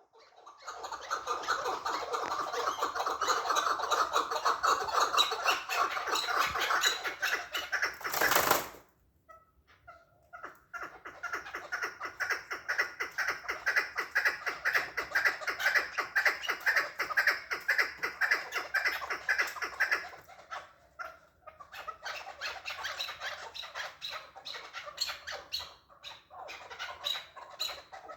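Chukar partridge calling in long runs of rapid repeated chattering notes. A sharp crack about eight seconds in is followed by a short pause, then the calling resumes, softer in the last third.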